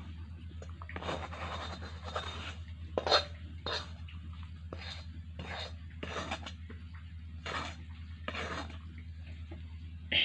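Metal spoon or spatula scraping and clinking against steel cookware as it works the cooked coconut-sugar barfi mixture. About ten irregular strokes, the sharpest about three seconds in, over a steady low hum.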